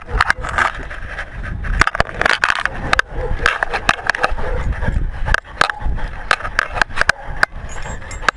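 Knocking and scraping from a camera worn on a walking dog's collar, with irregular clicks a few times a second over a steady rubbing noise.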